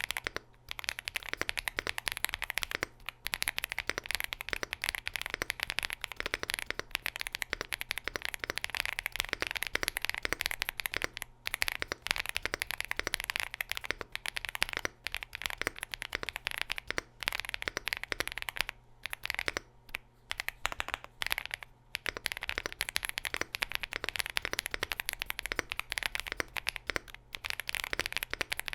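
Continuous fast typing on a gasket-mounted aluminium mechanical keyboard with Kailh Cocoa switches, PBT keycaps and an FR4 plate: a dense, steady patter of key clicks with a few short pauses.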